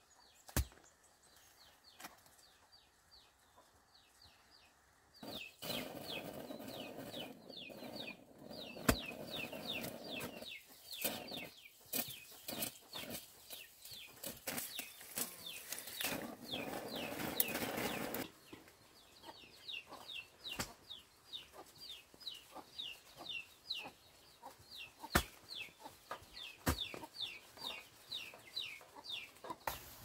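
Chicks peeping in rapid runs of short, high, downward-sliding calls, several a second. A long stretch of rustling and scraping starts about five seconds in and stops suddenly near the middle, and a few sharp knocks are heard.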